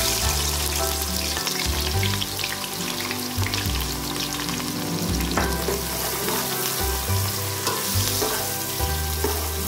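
Sliced onions sizzling hard in hot cooking oil in a large aluminium pot, a steady, dense frying hiss, with a spoon stirring through them near the end.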